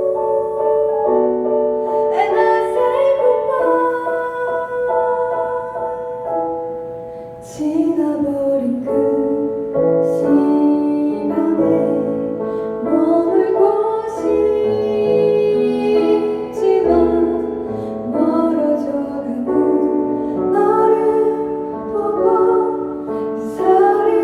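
A song played on piano, with a woman singing the melody over it.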